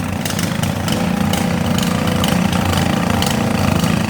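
Riding lawn mower engines running steadily, with scattered short sharp clicks and knocks over the top.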